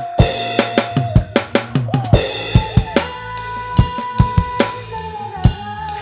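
Electronic drum kit played in a steady groove of kick, snare and cymbal strokes, along with a backing track of a soul song that has its drums removed, leaving sung vocals and bass.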